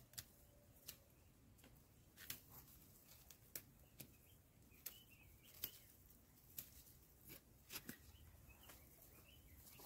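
Dry barley being picked by hand: about a dozen short, crisp snaps at irregular intervals as the ears and stalks are broken off. Faint bird chirps in the background.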